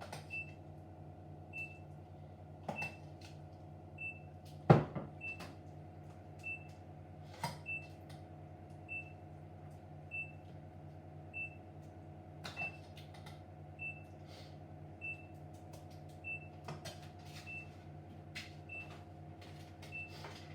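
Steady electrical hum of a running kitchen appliance, with a faint short high chirp repeating about every second, under scattered clinks and knocks of utensils and dishes while a lasagna is layered. One sharp knock stands out about five seconds in.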